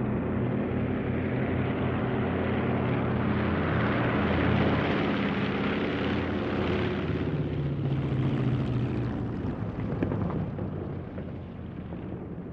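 Airplane engines running loud and close, a dense noise with steady low engine tones, during the landing. A single sharp knock comes about ten seconds in, and then the engine noise fades away.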